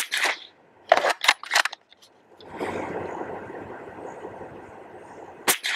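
Rifle shots fired at a paper target 100 yards out, heard from the target end: a sharp crack at the start, several quick cracks about a second in, and another near the end, with a steady noise between, likely wind.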